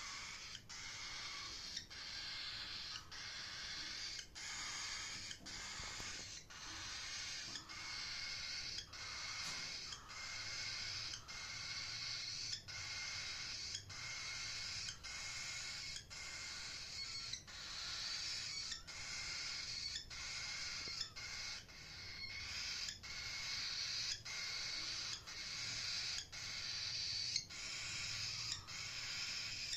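Cockatiel chirping in a continuous, repetitive stream, broken by short regular pauses about three times every two seconds.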